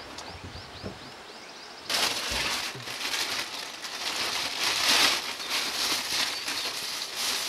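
A small bird gives a quick series of short, high chirps, about four a second. About two seconds in, a loud, crackling rustle starts suddenly and takes over.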